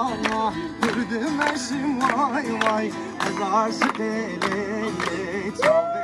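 Acoustic guitar strummed to accompany a man singing a folk song with a wavering, ornamented melody, the group clapping along. Near the end he holds one long note.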